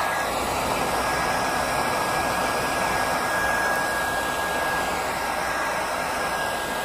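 Hand-held hair dryer blowing steadily, a rush of air with a thin steady whine over it, aimed at the hairline to dry the glue under a lace frontal.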